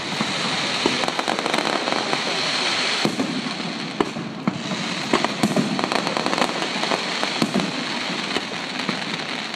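Fireworks display: a dense crackling hiss of crackling stars for the first three seconds, then thinner crackle with scattered sharp pops and bangs.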